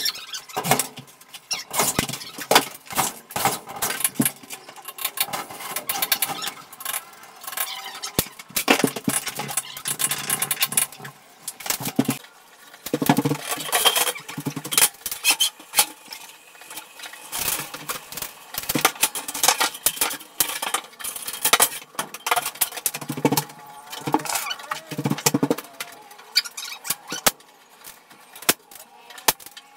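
Steel studs and track being handled and fitted, with irregular metallic clattering, knocks and scraping, and a few short bursts of a small power tool's motor.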